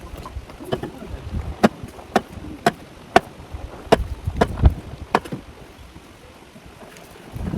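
A run of about eight sharp knocks, roughly two a second, that stops about five seconds in.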